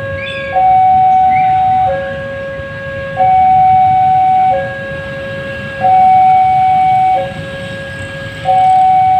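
Railway level-crossing warning alarm sounding a loud electronic two-tone signal, a higher and a lower note alternating about every 1.3 seconds, over a low rumble.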